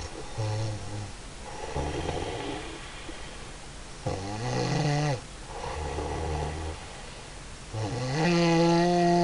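A woman snoring in deep sleep: about five rasping snores in a row, two of them with a strong buzzing tone that rises and then holds, the last the longest and loudest.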